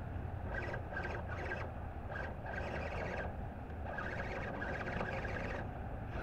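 Electric RC crawler's motor and drivetrain whining in short, irregular bursts as the throttle is blipped to climb over a log.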